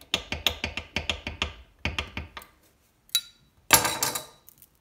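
A kitchen knife blade knocking and sawing at a thin wooden barbecue skewer against a granite countertop: a quick run of sharp taps for about two and a half seconds. A louder scrape follows near the end.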